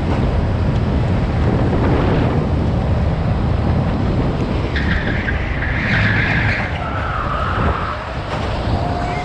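Go-kart driven hard through corners, heard from onboard: steady engine and road rumble, with the tyres squealing for a couple of seconds around the middle.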